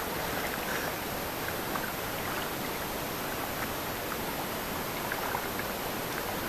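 Water swishing and splashing around a wooden paddle worked through the water beside a small paddled boat, with a steady rushing hiss throughout and a few faint drips.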